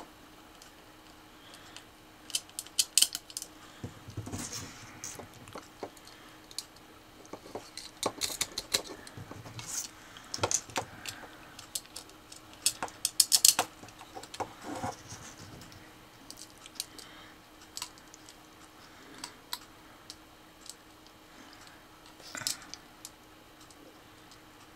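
Tiny screws, nuts and a small metal robot chassis being handled on a cutting mat: irregular light clicks and taps of small metal parts, coming in scattered clusters.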